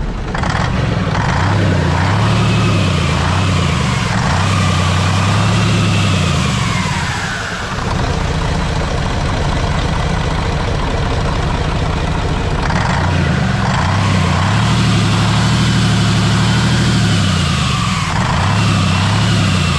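Ural truck's turbocharged diesel engine running with the hood open, revved up and dropped back twice with steadier running in between. It is running again after its injection pump was refitted, with the ignition timing not yet set.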